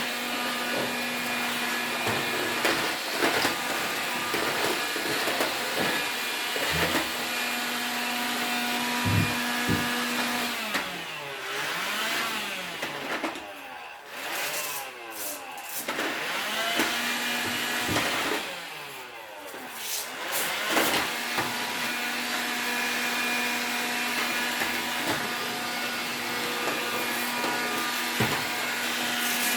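A small motor running with a steady whirr and a hum. It drops out twice for a few seconds, about ten and eighteen seconds in, and in those gaps wavering whistled glides sound.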